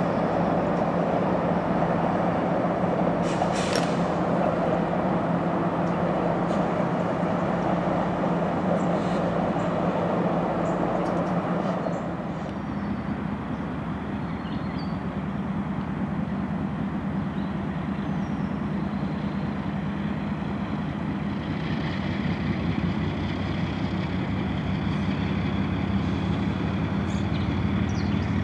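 Norfolk Southern diesel locomotives running, a steady engine drone with a low hum. About twelve seconds in the sound changes abruptly to a quieter, more distant drone of road locomotives hauling an intermodal train, which slowly grows louder toward the end.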